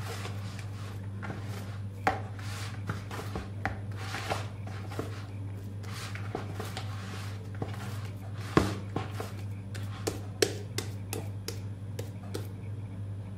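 Hands working a wet, sticky bread dough in a plastic bowl, pulling and folding it over: soft squelches and rubbing with a few sharper slaps, the loudest about two-thirds of the way through.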